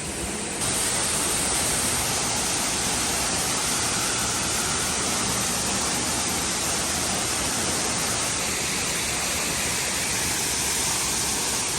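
Waterfall in heavy flood, a steady rush of falling water that steps up a little about half a second in. The falls are raging, running through a cave that is usually dry.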